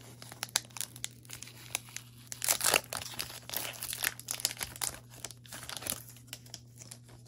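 Foil wrapper of a Pokémon booster pack crinkling and tearing as it is ripped open by hand and the cards are slid out: a run of crackles, loudest about two and a half seconds in.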